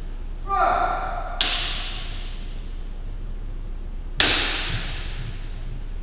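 A kendo shout (kiai), then a sharp crack of a bamboo shinai strike ringing in the hall; a second, louder crack comes about four seconds in.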